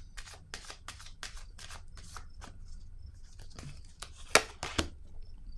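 Cards being handled: a run of short, crisp flicks and rustles, about two a second, as a card is drawn from the deck, with two louder snaps about four and a half seconds in.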